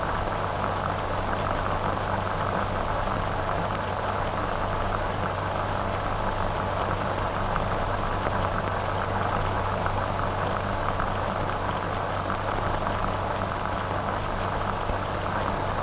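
Steady hiss and crackle of an old optical film soundtrack over a low, even hum, with no other sound.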